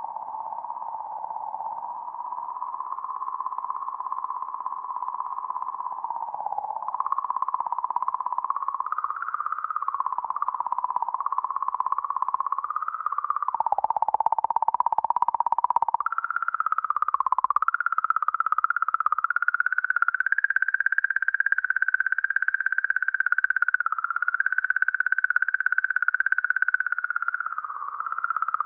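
Sonified 'song' of Comet 67P: oscillations in the comet's magnetic field, recorded by Rosetta's Plasma Consortium at 40–50 millihertz and raised in frequency to be audible. A continuous, wavering electronic tone whose pitch drifts higher through the stretch, with a brief dip about halfway.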